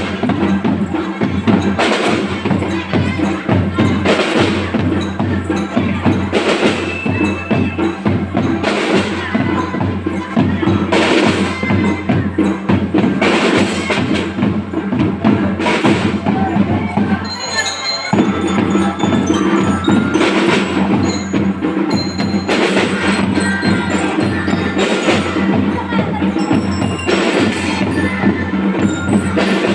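Marching drum band playing: a fast drum rhythm under a bell-like mallet melody, with crashes about every two seconds and a brief break about two-thirds of the way through.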